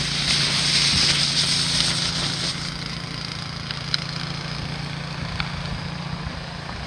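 An engine running steadily in the background, stopping near the end, with a few crunching steps in snow.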